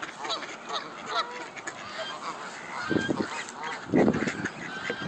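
Domestic ducks quacking and calling over and over, several short calls a second, with two louder bursts of noise about three and four seconds in.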